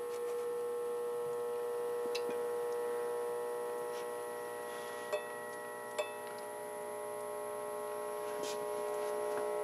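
Steady faint background hum with two small light clicks about a second apart, from metal tweezers touching thin wood strips and the cast-iron skillet as the strips are shifted in hot sand.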